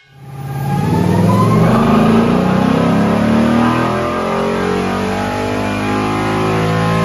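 Ford Mustang GT's 5.0 V8 running on a chassis dyno, revving up over the first second or two, then holding at fairly steady revs.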